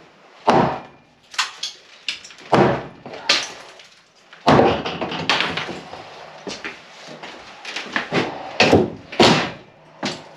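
A hammer striking the wooden stud of an old lath-and-plaster tabique wall: a run of irregular heavy bangs, roughly once a second, with a longer clatter of wood and debris about four and a half seconds in.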